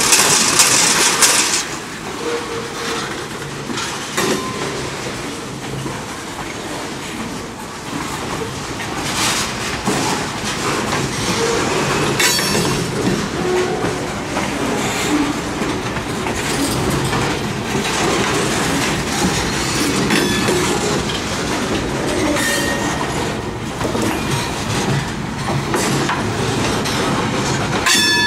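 Freight cars rolling past close by: a steady rumble of steel wheels with clickety-clack over rail joints and a few brief wheel squeals. A loud hiss fades out about a second and a half in.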